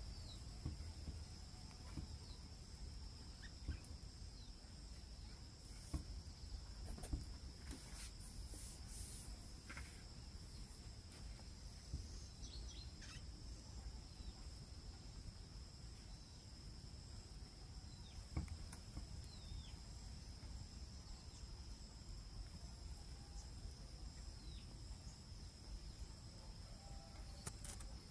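Faint outdoor ambience of a steady, high-pitched insect trill, with scattered short bird chirps and a few light clicks over a low rumble.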